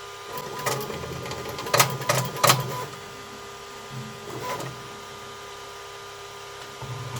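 Creality K2 Plus 3D printer running its automatic bed-leveling routine: a steady high motor whine with several sharp clicks about one to three seconds in and a softer one later.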